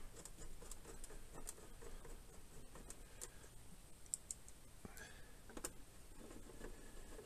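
Faint, scattered light clicks and taps of small metal screws and monitor-arm parts being handled.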